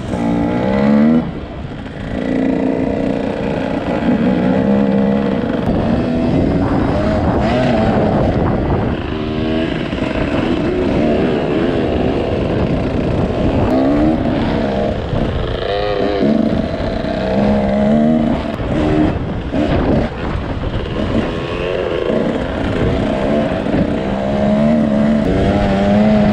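Two-stroke Husqvarna dirt bike engine being ridden hard. It revs up and drops off again many times as the throttle opens and closes and the gears change.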